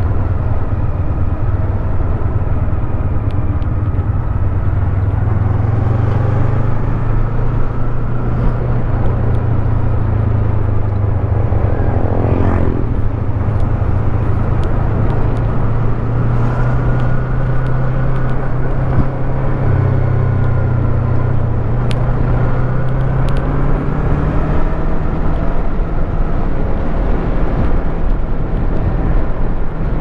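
Yamaha MT25's parallel-twin engine running under way as the motorcycle climbs a road, its note slowly rising. About twelve seconds in the engine pitch briefly dips and comes back up.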